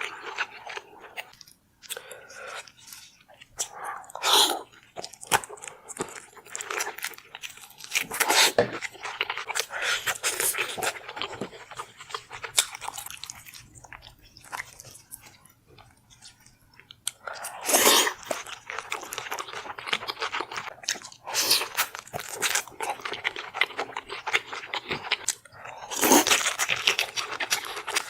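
Close-miked eating: crunching and chewing of food in quick irregular crackles, with a few louder crunching bites spread through.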